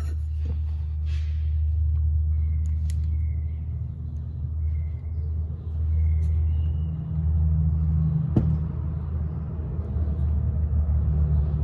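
Steady low rumble with a few faint clicks and one sharp click about eight seconds in, as a disc brake caliper piston is pressed slowly into its bore with a clamp tool.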